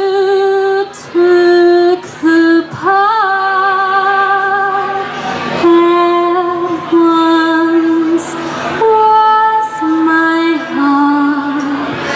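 A woman singing a slow jazz vocal line into a microphone, holding long notes with vibrato, with short breaks between phrases.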